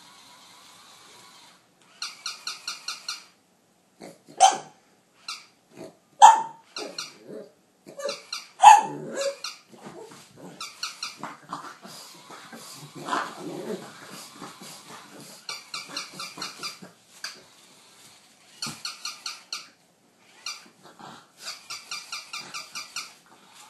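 A pug barking and growling in short outbursts, several sharp loud barks in the first half, alongside repeated bursts of rapid, evenly spaced high-pitched squeaking.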